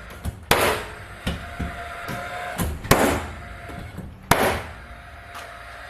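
Paslode XP cordless gas-powered framing nailer driving nails into wooden framing: a run of sharp shots about half a second to a second apart, three of them much louder than the rest.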